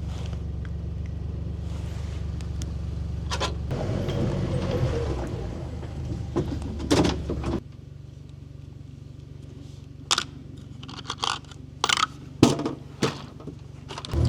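A vehicle engine running steadily, dropping to a quieter hum a little past halfway, followed by scattered short clicks, knocks and scrapes.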